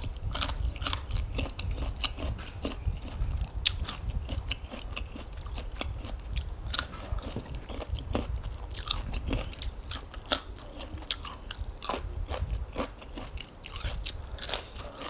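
Crisp raw vegetables, carrot and long bean, being bitten and chewed close to the microphone: a run of irregular crunches.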